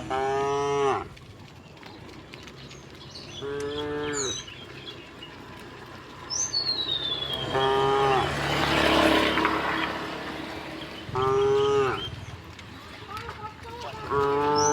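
A herd of cows mooing, about five separate short moos a few seconds apart. High falling whistles come twice in between, and a brief rush of hiss rises and fades around the middle.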